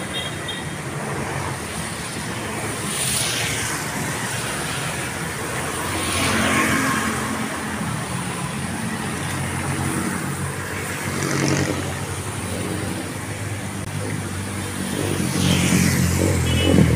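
Road traffic passing on wet asphalt: a steady wash of vehicles, with cars going by one after another, each swelling and fading with tyre hiss. An engine grows louder near the end as another vehicle approaches.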